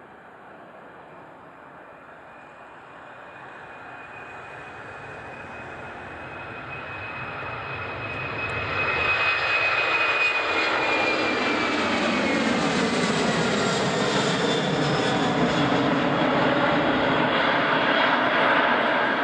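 Airbus A300-600ST Beluga's two General Electric CF6-80C2 turbofan jet engines at takeoff power, growing steadily louder as the aircraft rolls toward the listener and lifts off. A high whine drops slightly in pitch about halfway through as it passes, then the engines stay loud and steady as it climbs away.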